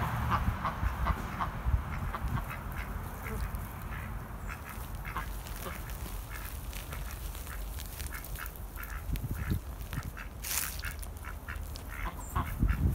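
Domestic ducks quacking as they forage, in many short, separate calls.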